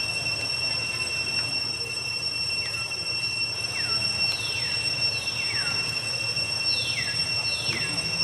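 Steady high-pitched drone of cicadas. From about two and a half seconds in, a series of short whistled calls falls steeply in pitch, getting stronger and coming in pairs near the end.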